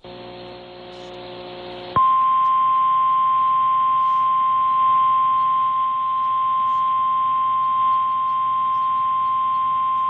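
NOAA Weather Radio warning alarm tone, a single steady high tone near 1050 Hz, played by a Reecom R-1630 weather radio. It comes in sharply about two seconds in, after a stretch of receiver hiss, and signals that a warning broadcast is about to follow.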